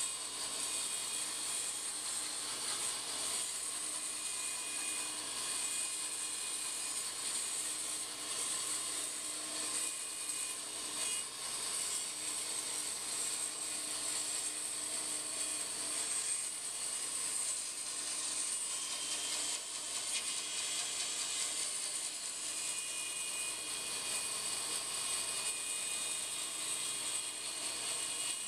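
Large bandsaw running and resawing a curved mahogany bentwood lamination in half lengthwise: a steady cutting noise with a high hiss.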